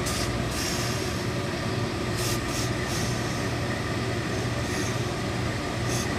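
Industrial hose-fed steam iron pressing trouser fabric, letting off steam in short hissing spurts, several times, over a steady low machine hum.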